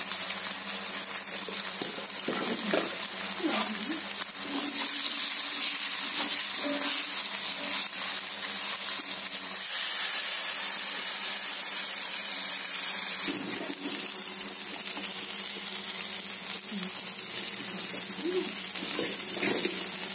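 Hog plums and spices frying in hot oil in a cast-iron kadai, sizzling steadily. From about a quarter of the way in, the sizzle grows louder and harsher for several seconds as water is poured into the hot pan in a cloud of steam, then eases back to a softer sizzle.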